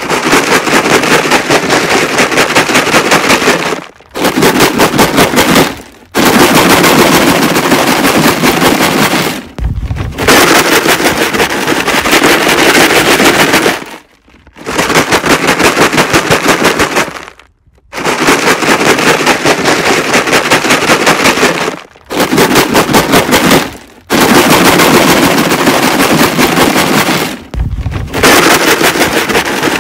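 A jug of rocks being shaken hard: a loud, dense, rapid rattle of stones against the jug's walls, in about nine bursts of two to four seconds each with brief pauses between them.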